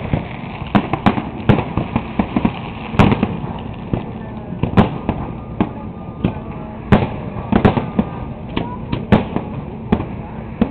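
Aerial fireworks shells bursting over the water: an irregular run of sharp bangs, roughly one or two a second, over a steady background rumble.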